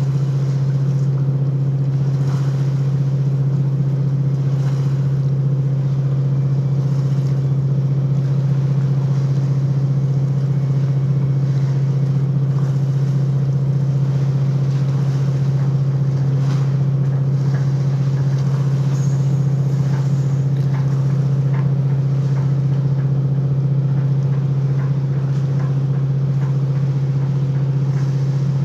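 Diesel engine of a 4000 DWT general cargo ship running with a steady, unchanging low drone, heard on board.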